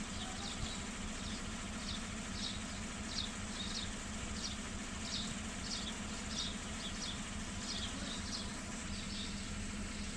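Faint, evenly repeated high chirping, about three chirps every two seconds, from a small creature such as an insect, over a steady low hum.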